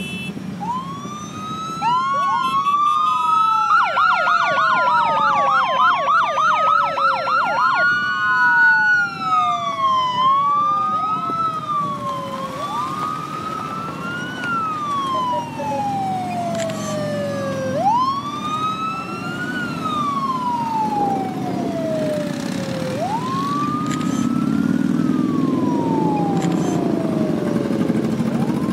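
Police sirens wailing, each tone rising and then falling slowly. Several overlap at first, with a fast yelping run from about four to eight seconds in, then a single slow wail repeating every two to three seconds. A low rumble of motorcycle engines runs underneath and grows louder near the end.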